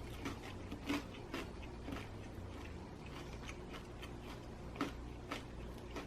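Quiet chewing of crispy pizza: a few soft, short mouth clicks and crunches spread through, over a low steady room hum.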